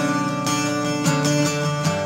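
Background music led by strummed acoustic guitar, with chords changing about every half second.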